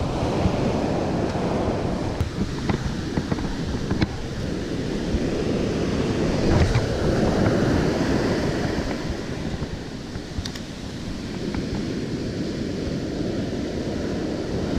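Pacific surf breaking and washing up a sandy beach, a steady rushing wash that swells louder about seven seconds in, with wind buffeting the microphone. A few light clicks come through.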